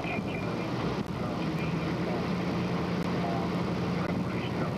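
A vehicle engine running steadily: a low hum over rumbling noise.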